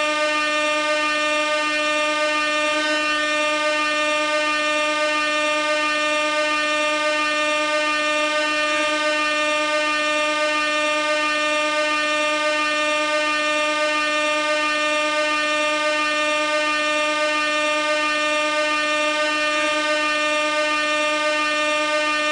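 Air horn sounding one long unbroken note, holding the same pitch and loudness throughout.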